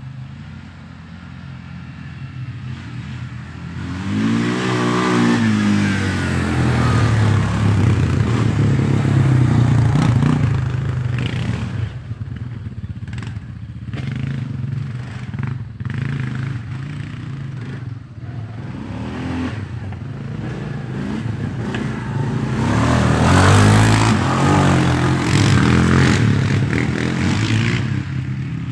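A small off-road vehicle's engine revving and accelerating, its pitch rising and falling. It grows louder twice, about a quarter of the way in and again near the end, with choppier revving in between.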